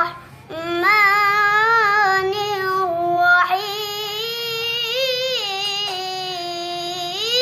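A child's voice chanting Quranic recitation in the melodic tilawah style: long held notes with wavering ornaments, with a short breath about half a second in and the pitch rising around the middle and again near the end.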